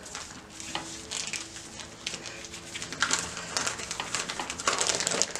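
A plastic freezer bag of flattened minced meat crinkling and rustling as gloved hands fold and smooth it. The crackling gets busier about three seconds in.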